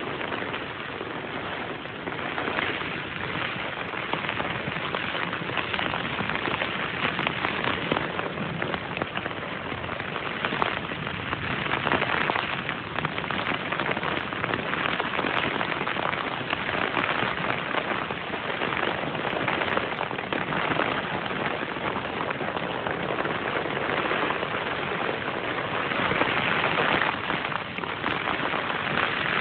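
Heavy thunderstorm rain falling steadily, a dense, continuous patter of drops.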